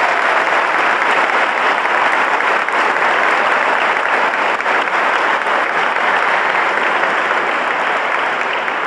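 A church congregation applauding, a dense steady clapping that eases slightly near the end.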